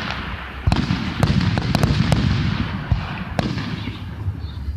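Aerial fireworks going off: several sharp reports at uneven intervals over a continuous crackling hiss and a low rumble.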